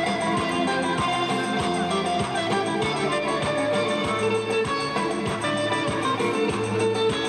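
Instrumental music with a plucked guitar or saz and a steady beat.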